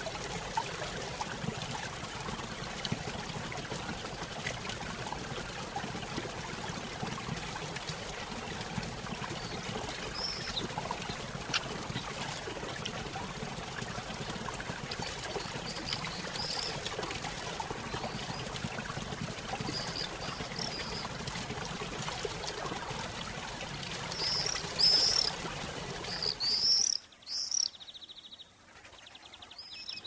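Steady rush of a waterfall with small birds chirping now and then over it, the chirps coming more often and louder near the end. A few seconds before the end the water sound cuts out almost completely for about three seconds while a bird keeps chirping, then returns.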